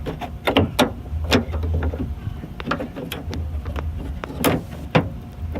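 Irregular clicks and knocks of metal parts being handled inside a car door while the outside door handle and its linkage rod are fitted, with a few louder knocks about a second in and near the end.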